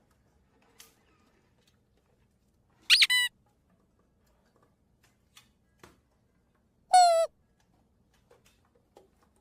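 Squeaky-toy squeak sound effect, twice: a quick double squeak about three seconds in and a single longer squeak about seven seconds in, with near silence between.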